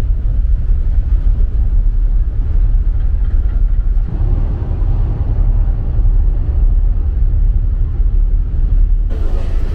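A ferry's engines run with a steady deep rumble, mixed with the rush of water from the churning wake. About four seconds in, the noise changes character and takes on more midrange.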